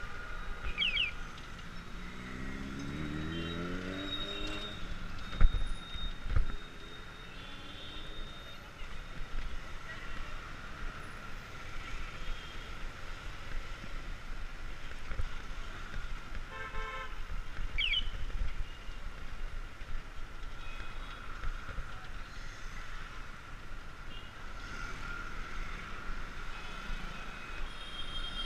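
Busy city street traffic: engines of the small goods truck just ahead and the surrounding cars and motorbikes, with short horn toots now and then. An engine revs up a few seconds in, and two sharp knocks come about five and six seconds in.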